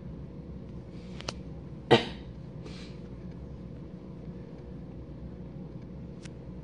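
A person coughs once, sharply, about two seconds in. Underneath runs the steady low hum of a Whirlpool dishwasher's drain pump, with a faint click shortly before the cough and another near the end.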